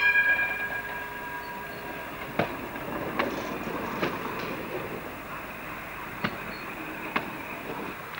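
Munich M-type tram car rolling past close by: a metallic ringing tone that fades out in the first two seconds, then a steady rolling rumble of steel wheels on rail with five sharp clicks as the wheels cross rail joints.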